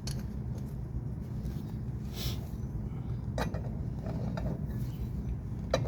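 A few light metallic clicks and clinks of hub parts being handled and fitted, the sharpest near the end, over a steady low rumble.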